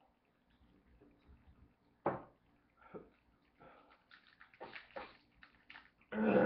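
Trading cards being handled and shuffled: a few short rustling swishes, the loudest about two seconds in and another near the end.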